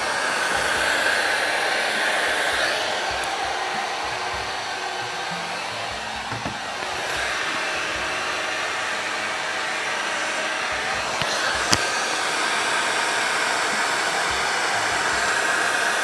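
Heat gun running steadily, its fan whirring and blowing hot air onto a steel bicycle frame's seat tube to expand it around a seized aluminium seatpost. One sharp click about three-quarters of the way through.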